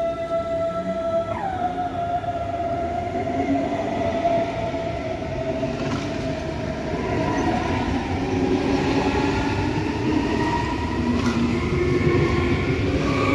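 A DB class 423 electric multiple unit accelerates past at close range, its electric traction drive whining over the rumble of wheels on rail. The whine drops suddenly in pitch about a second in, then climbs steadily as the train gathers speed.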